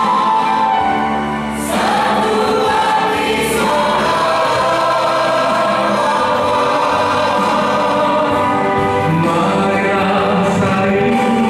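Mixed choir of men's and women's voices singing a hymn, with a brief break between phrases about a second and a half in.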